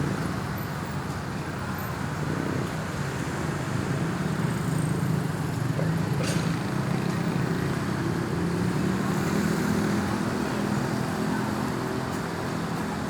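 Road traffic: a vehicle engine running with a steady low hum over general traffic noise, with a single sharp click about six seconds in.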